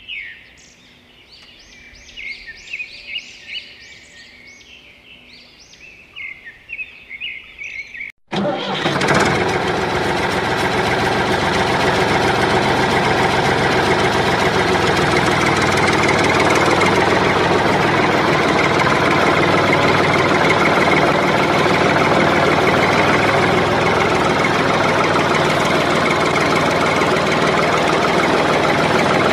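Birds chirping in quick repeated calls. About eight seconds in, a sudden cut brings in a loud tractor engine running steadily.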